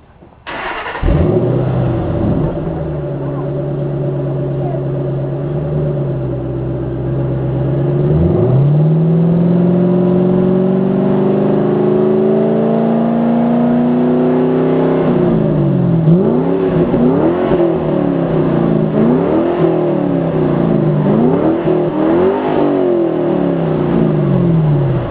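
2007 Ford Mustang GT California Special's 4.6-litre V8 through its stock exhaust, starting up about half a second in and settling to a steady idle. It is then held at a slowly climbing rev before dropping back, and blipped up and down about four times near the end.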